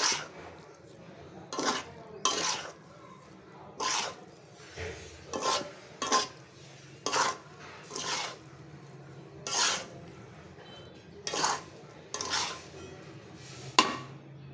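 A spatula stirring boiled rice in a karai, scraping the pan in about a dozen short strokes, roughly one a second.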